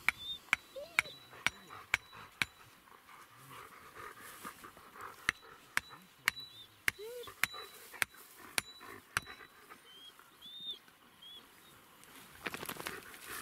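Hammer driving tent stakes into the ground: sharp strikes with a short ring, about two a second. A run of six comes first, then a pause, then about eight more.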